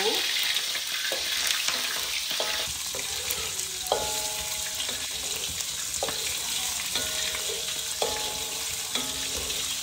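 Salted Indian mackerel (ikan masin kembung) frying in hot oil: a steady sizzle with a few sharp crackles of spattering oil.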